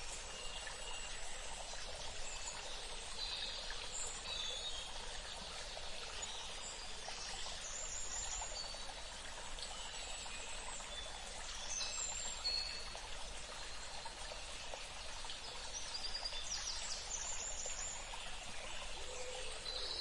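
Steady rushing outdoor background noise, with short, high bird calls scattered through it, now and then, a few at a time.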